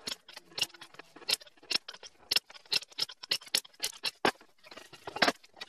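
Ratchet wrench clicking in short, uneven strokes, about two or three clicks a second, as the ring-gear flange bolts on a limited-slip differential are tightened; the loudest clicks come about four and five seconds in.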